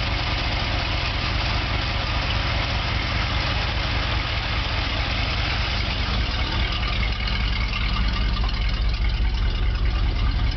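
1977 Chevrolet pickup's engine idling steadily.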